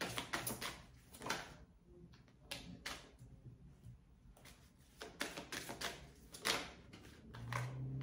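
A deck of tarot cards being shuffled by hand: irregular clusters of quick card flicks and riffles, with pauses between them.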